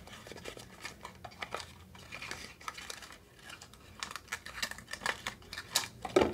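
Hands opening a small cosmetics box and sliding out a dropper bottle: irregular rustling and light clicks of the packaging, with one sharper click near the end.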